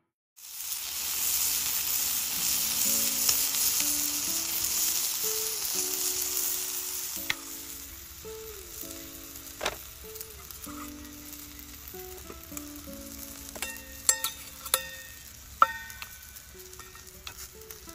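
Meat sizzling in a frying pan, loudest for the first several seconds and then quieter, with a few sharp clicks later on, over soft background music.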